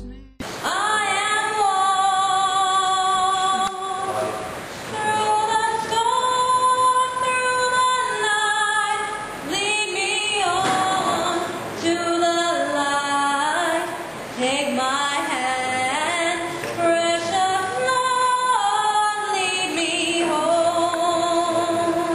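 A woman singing solo and unaccompanied, holding long notes with vibrato in phrases. The singing begins about half a second in.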